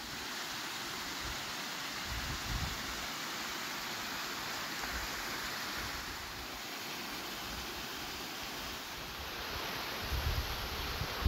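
Mountain stream rushing over rocks, a steady rush of water, with gusts of wind buffeting the microphone about ten seconds in.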